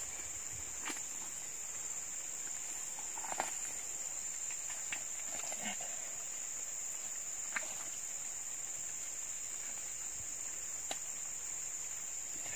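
Steady high-pitched drone of insects, with a few faint ticks and rustles scattered through it.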